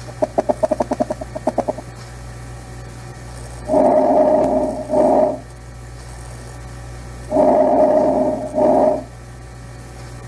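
Recorded vesicular breath sounds as heard through a stethoscope: twice, a longer inhalation followed by a shorter exhalation, the normal sound of air moving over the lung field with no wheeze. A quick fluttering run of pulses comes before the first breath.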